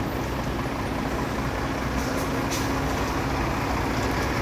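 Diesel engine of a loaded Freightliner semi-truck hauling sugarcane, running steadily as the truck pulls slowly forward and turns.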